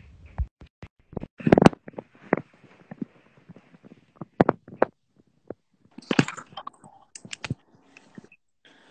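A smartphone being handled close to its microphone: irregular taps, knocks and rubbing, with a denser run of rustling about six seconds in.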